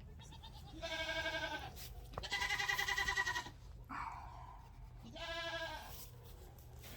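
Nigerian Dwarf goat kids bleating: three quavering bleats, the second the longest and loudest.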